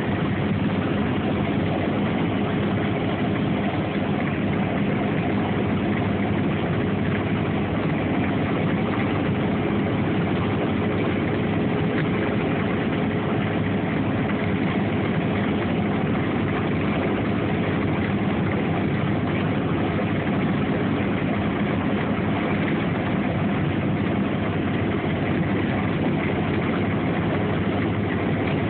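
Car engine running with a steady hum, holding a constant pitch and level throughout.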